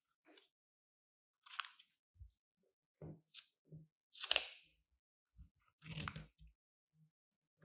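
Scissors snipping through paper: about four separate crisp cuts with gaps between them, the loudest a little past four seconds in.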